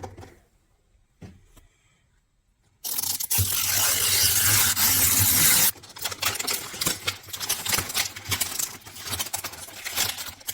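Toy packaging being handled and torn open: a few light clicks, then about three seconds of loud tearing, then quick crinkling and clicking rustles.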